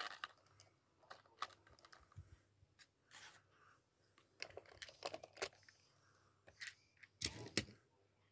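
Scattered light clicks and taps of handling close to the microphone, with two louder knocks about seven seconds in.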